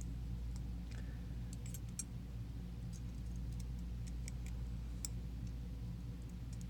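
Scattered, irregular small clicks and ticks of metal lock parts and a tool as the sliders are worked out of an Assa Desmo cam lock's core, over a steady low hum.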